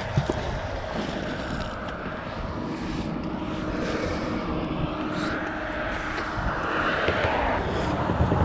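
Highway traffic passing: a steady rush of tyres and engines that swells as vehicles go by, with a faint engine hum in the middle.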